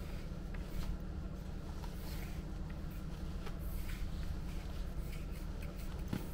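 Faint rustling and light ticks of a padded jacket moving as a wooden stick is swung overhead, over a steady low rumble.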